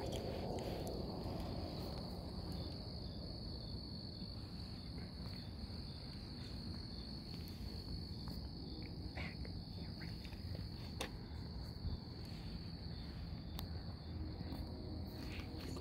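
Chorus of crickets trilling in one steady, unbroken high tone, over a low rumble, with a few faint clicks.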